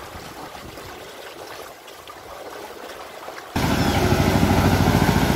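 Low sloshing of floodwater. About three and a half seconds in, it cuts abruptly to a motor vehicle's engine running close by with a fast, steady chug, as the vehicle drives through shallow floodwater.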